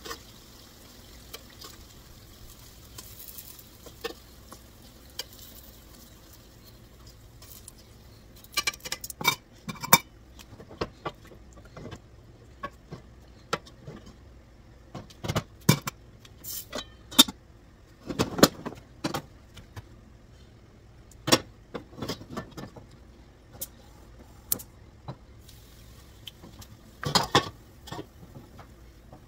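Cooking utensils knocking and clinking against a frying pan and a cooking pot, in many separate irregular strikes, as fried pakoras are lifted out of the hot oil and dropped into curry gravy. Faint sizzling of the frying oil at the start.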